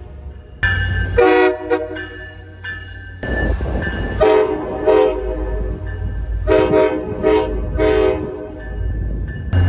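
Passenger-train locomotive's multi-chime air horn sounding. One blast comes about half a second in; after a cut, a string of short blasts follows from about four seconds on. A low rumble runs underneath.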